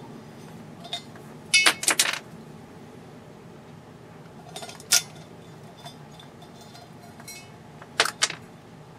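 Sharp clicks and cracks of a brittle picture-tube base being chipped and snapped apart around the 12LP4's pins. There is a quick cluster of several about a second and a half in, a single one near five seconds and a pair around eight seconds.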